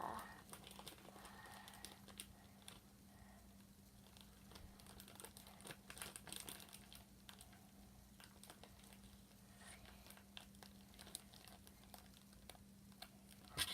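Faint, scattered sticky clicks and crackles of clear slime being squeezed and poked by hand, over a steady low electrical hum.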